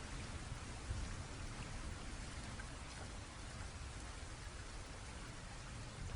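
Steady rain falling, an even hiss with faint scattered drop ticks and a low rumble underneath.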